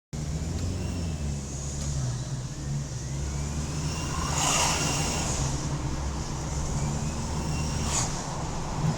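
Toyota Hilux engine running under way, breathing through an aftermarket air filter, with the turbocharger's faint whistle rising slowly in pitch over the engine drone. A loud hiss comes about four and a half seconds in, and a shorter one near the end.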